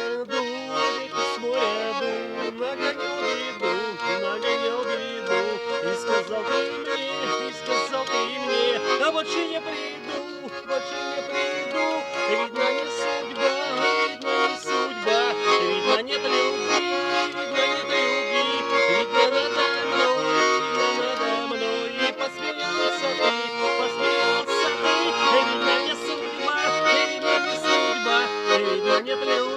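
Garmon, the Russian button accordion, playing a melody over sustained chords, with no singing.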